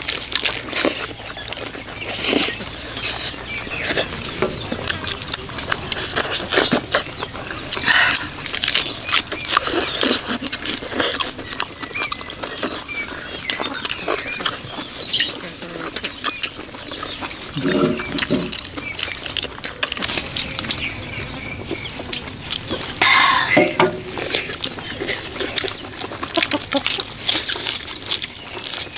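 Close-up eating sounds: irregular chewing and smacking with sharp clicks and crackles.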